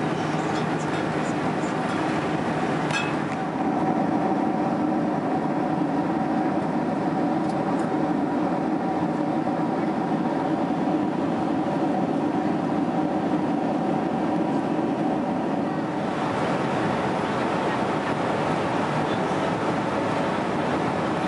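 Steady cabin noise of a Boeing 767-300 in flight: the drone of the engines and rushing air. There are a few light clicks in the first three seconds, and the tone shifts about three seconds in and again after about sixteen seconds.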